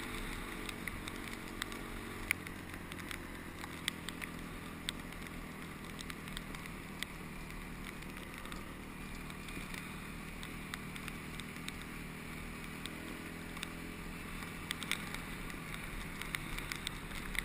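Honda CRF250X single-cylinder four-stroke dirt bike engine running at a steady cruising speed, heard from the rider's own bike, with scattered sharp clicks over it.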